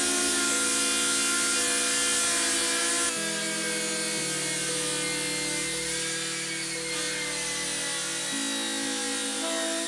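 Bosch jigsaw running steadily as it cuts through a chipboard sheet, a little quieter from about three seconds in, under background music with held chords.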